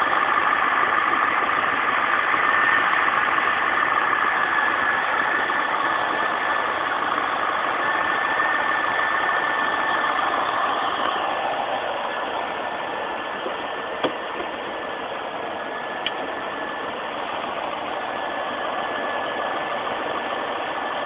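Corvette C5's V8 engine idling steadily with the hood up, a steady whine over the running noise. Two light clicks come about two-thirds of the way in.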